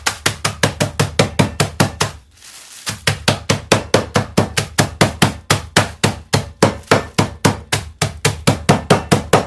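Caramel biscuits in a sandwich bag being pounded to crumbs: a steady run of hard knocks, about four a second, with one short pause a little over two seconds in.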